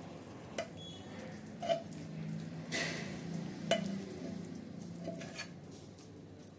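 Steel pan and spatula clinking and scraping against a steel plate as crumbly, just-cooked kalakand mixture is tipped and scraped out of the pan. About five sharp clinks with a longer scrape near the middle, over a faint low hum.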